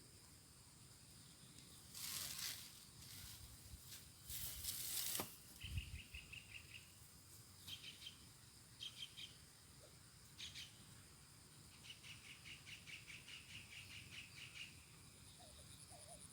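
Faint rural outdoor ambience with a steady high insect hum. Two brief rustling bursts come about two and four and a half seconds in, followed by several short runs of fast, high chirping pulses, the longest about twelve to fifteen seconds in.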